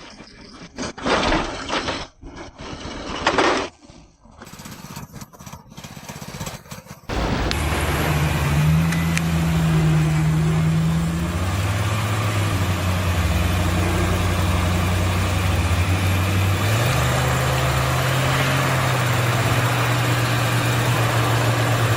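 Bus engine running hard under load, its pitch stepping up and down as the driver works the throttle to get the bus moving on snow while it is pushed. Before it, a few short loud noisy bursts in the first few seconds.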